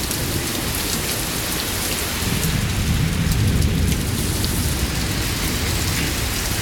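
Heavy rain pouring steadily, with a low rumble swelling between about two and four seconds in.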